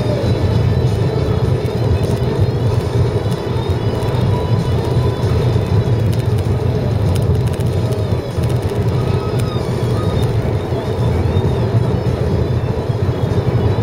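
Steady road and engine noise heard inside a car cabin at highway speed on rain-wet pavement, an even low rumble with tyre hiss from the wet road.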